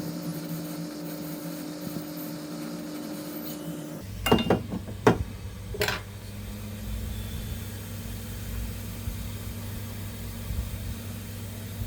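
Steady blower hum of a hot air rework station desoldering an IC from a laptop motherboard. Three sharp knocks come between about four and six seconds in, and the hum deepens at the first of them.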